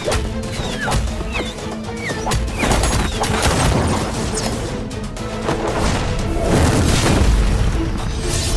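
Dramatic score music under a dense run of crashing impacts and deep booms, animated-action sound effects. A few short gliding tones come through in the first three seconds, and the crashes peak about six to eight seconds in.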